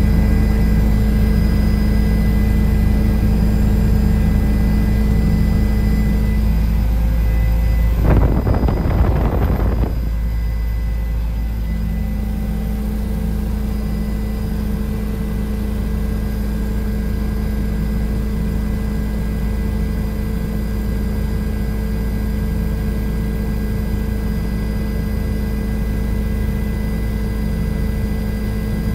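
Helicopter cabin noise: a steady drone of engine and rotor, with a deep rumble and several steady hum tones, heard from inside the cabin. About eight seconds in, a rush of noise lasts around two seconds, after which the drone is slightly quieter.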